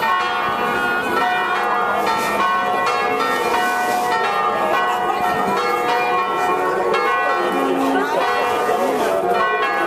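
Church bells ringing on and on, many long-sustained tones overlapping in a continuous peal.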